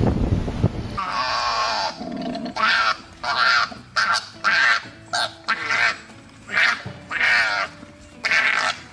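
An animal calling over and over: about ten short, loud, high cries in quick succession, each well under a second long, after a second of rough rushing noise.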